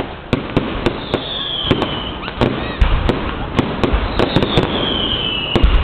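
Fireworks display: a rapid run of sharp bangs and crackles, with deeper booms about three seconds in and near the end. Two whistles fall in pitch, one about a second in and one about four seconds in.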